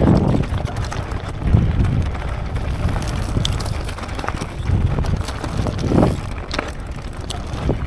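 Electric mountain bike riding over rocky ground: tyres and frame clatter with irregular knocks, while wind buffets the microphone.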